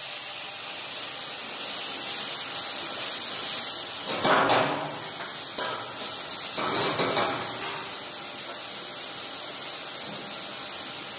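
Morel mushrooms sizzling as they sauté in olive oil in a pan over a gas burner, stirred with a wooden spatula. The stirring gets louder at about four seconds and again around seven seconds.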